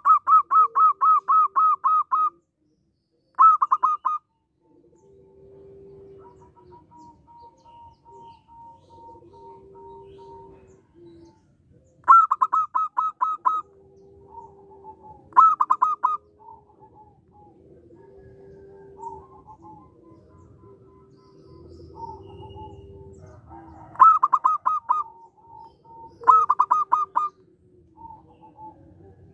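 Zebra dove (perkutut) calling in six loud bursts of quick, evenly repeated notes at about five a second, the first burst about two seconds long. Fainter, lower held notes fill the gaps between bursts.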